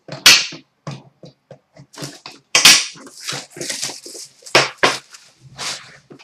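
Irregular crinkling and rustling of hockey card packs and cards being handled and opened, with several sharp, louder crackles.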